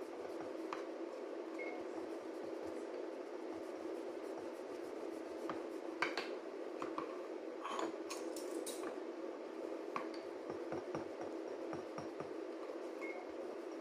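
Wooden rolling pin rolling and pressing slices of white bread flat on a wooden board, with scattered light knocks and rubbing, over a steady background hum.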